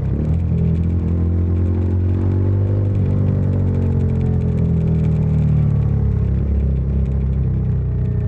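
Bajaj Dominar 400's single-cylinder engine and exhaust running under way, the pitch climbing with the throttle, dipping briefly about three seconds in, then climbing again.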